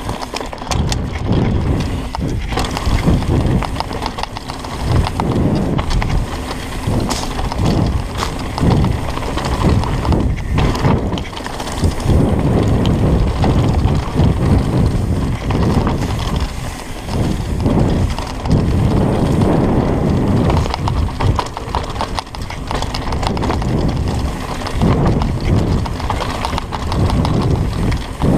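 Mountain bike riding down a dirt singletrack, heard from the rider's camera: tyres rolling over dirt and bumps, with the bike rattling and clattering in an uneven rhythm.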